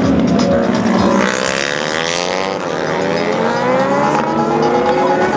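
Several racing motorcycle engines revving hard as the bikes race past. Their pitch repeatedly climbs and drops, with more than one engine heard at once.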